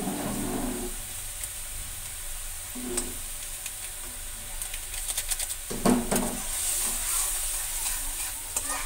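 Gravy sizzling steadily in an iron kadai over a gas flame, with a metal spatula scraping and clinking against the pan a few times, loudest about six seconds in.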